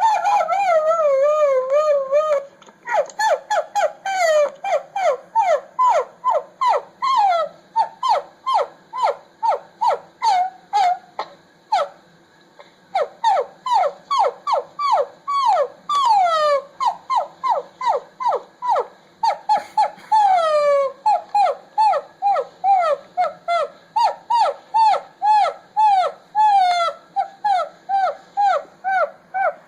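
A played-back annoying-sound recording: a wavering whistle-like tone, then a long, fast run of short squeaky chirps, each falling in pitch, about two to three a second.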